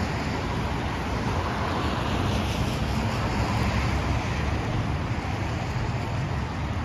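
Steady wet street noise: road traffic and the hiss of rain, with a low rumble underneath.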